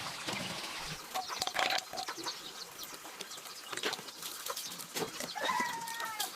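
Farmyard chickens clucking, with one drawn-out call near the end, over scattered light knocks and rustling.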